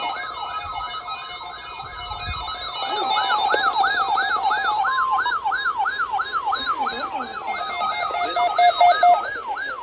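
Electronic siren yelping: a fast rising-and-falling wail about three times a second, layered over several steady held tones, cutting off suddenly at the end.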